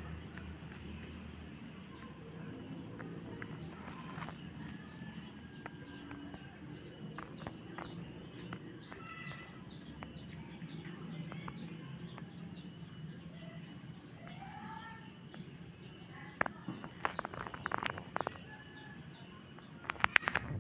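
Small birds chirping over and over in the background above a low steady hum. A run of sharp clicks and scrapes starts about 16 seconds in and comes again near the end; these are the loudest sounds.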